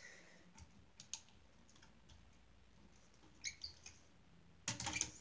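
Faint plastic clicks and rattles of Lego pieces as the hinged side panels of a brick-built truck's flatbed are folded up by hand, with a short cluster of clicks about three and a half seconds in and a louder handling noise near the end.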